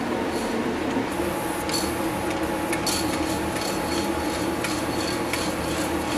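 Aerosol spray paint can being shaken, its mixing ball rattling in quick repeated clicks that start about two seconds in, over a steady hum.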